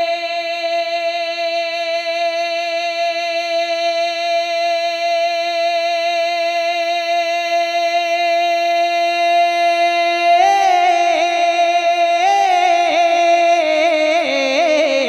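Male naat reciter singing unaccompanied into a microphone. He holds one long, steady note for about ten seconds, then ornaments it with quick turns and steps down in pitch near the end.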